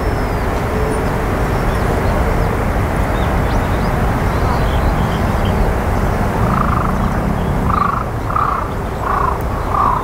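Steady rushing wind noise, with faint high bird chirps scattered throughout. In the second half comes a run of about five short harsh bird calls, roughly half a second apart.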